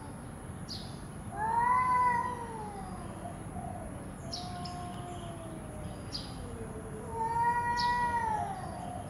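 Domestic cats in an aggressive standoff, yowling: two long, wavering, drawn-out yowls, one starting about a second and a half in and another near the end, with a quieter, lower moaning call sliding down in pitch between them.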